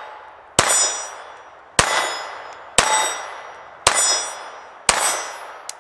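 Ruger LCP II .22 LR pocket pistol firing five shots about a second apart. Each shot is followed by the ringing of a hit round steel plate target, fading over about a second. A short faint click comes near the end.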